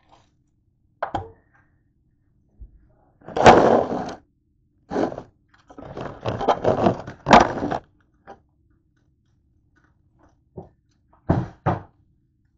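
Kitchen handling sounds as raw pork chops are unwrapped and laid on a metal sheet pan: thunks, crinkling and scraping in several bursts. The longest bursts are in the middle, and there are two quick knocks near the end.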